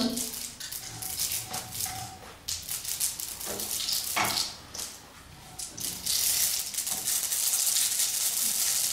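Mustard seeds crackling and popping in hot oil in a kadhai, a rapid, irregular run of sharp pops, turning from about six seconds in into a steady sizzling hiss. This is the tempering stage: the seeds are left to crackle well before the garlic goes in.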